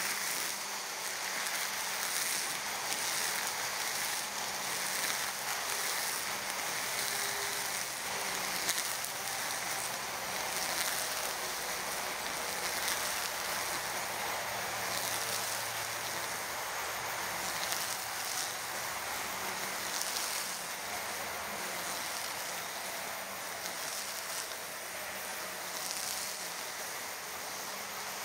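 EGO Power+ cordless string trimmer running and cutting through thick grass: a steady hiss of the spinning line through the grass over a faint motor hum.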